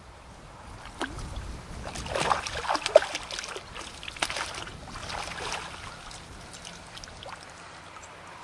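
A hooked carp splashing at the water's surface as it is drawn into a landing net, in a run of irregular splashes that is loudest about two to three seconds in and dies away after about six seconds.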